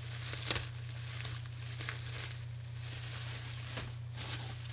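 Bubble wrap being handled and pulled off a wrapped item, crinkling and rustling, with sharper crackles about half a second in and again near the end.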